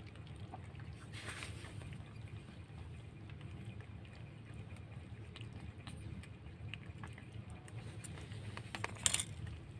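Cats crunching dry kibble: faint scattered clicks and crunches over a low steady hum, with a louder burst of clicks near the end.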